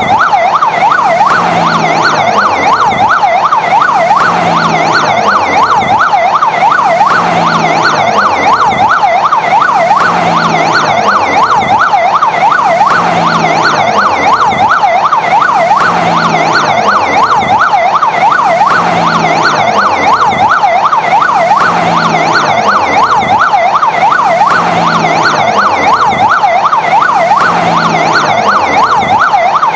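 Fire engine siren sounding continuously in a fast yelp, its pitch sweeping up and down several times a second, loud and unbroken.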